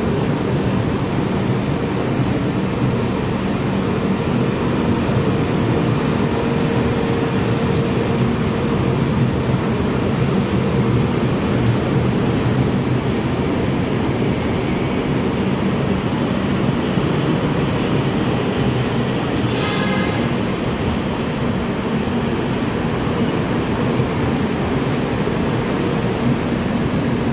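Rajdhani Express LHB passenger coaches running through a station at speed, coach after coach going by with a steady, unbroken rumble of wheels on the rails.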